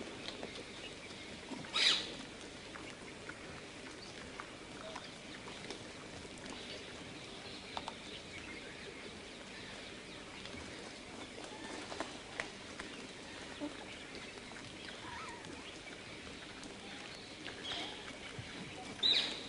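Outdoor ambience: a steady low hiss with scattered faint ticks, and two short, sharp animal calls, one about two seconds in and one near the end.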